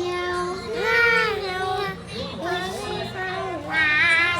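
A child singing in a high voice: long held notes that glide up and down, louder about a second in and again near the end.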